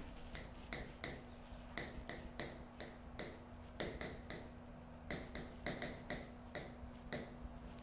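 Chalk writing on a board: an irregular run of faint taps and short scratches as letters are formed, with a faint steady hum underneath.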